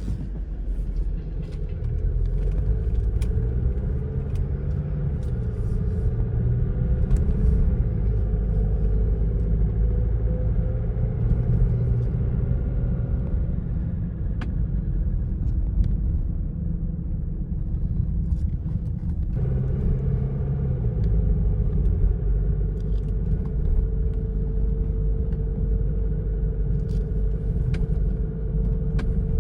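A car driving on the road: steady low rumble of tyres and engine, with the engine note rising and falling as the car speeds up and slows.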